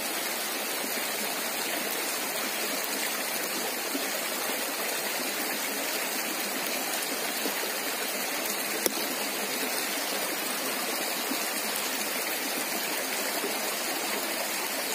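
Shallow stream running over a rocky bed: a steady, even rush of flowing water, with one sharp click a little after halfway.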